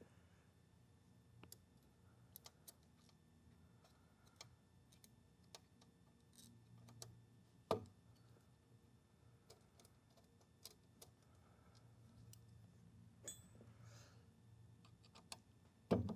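Faint, scattered clicks and light taps of hand tools and small parts being worked on the seamer's arm bearing assembly, with a sharper knock about eight seconds in and another near the end.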